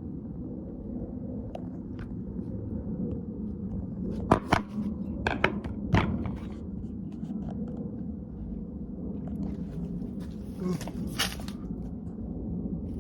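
A few sharp knocks and clicks, clustered about four to six seconds in and twice more near eleven seconds, over a steady low hum.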